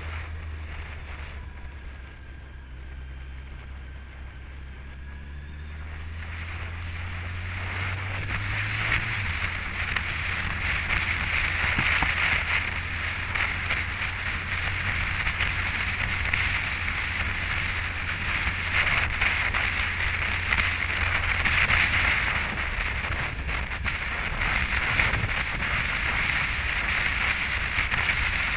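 Yamaha FJR1300's inline-four engine running under way, its note rising through the revs for several seconds and then holding steady. Rushing wind on the microphone builds as the bike gains speed and stays loud.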